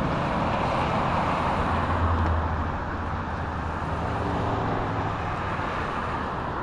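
Road traffic on a busy multi-lane road: a steady rush of tyres and engines, a little louder about two seconds in and easing off gradually.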